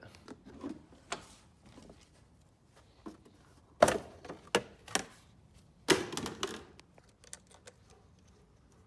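Battery cable clamps being handled and clipped onto battery terminals: a few sharp clicks and clacks, the loudest about four and six seconds in.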